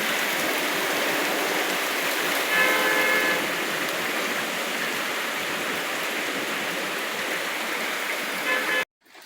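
Heavy rain pouring steadily, with a brief pitched tone about three seconds in. The rain noise cuts off abruptly just before the end.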